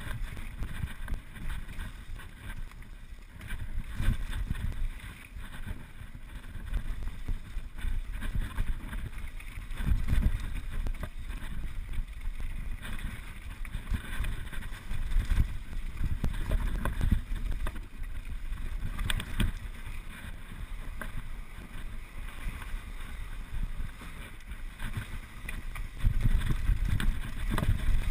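Mountain bike descending a dirt and gravel trail at speed: wind buffeting the handlebar camera's microphone over tyre rumble, with scattered clicks and clatter from bumps in the track. The rumble swells and eases with the terrain, loudest near the end on the open slope.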